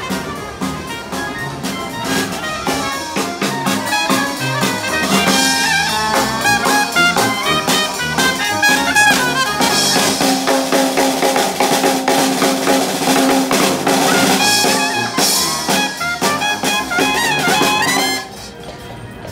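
Upbeat jazz-style music led by trumpets and other brass over a drum kit. It stops abruptly about a second before the end.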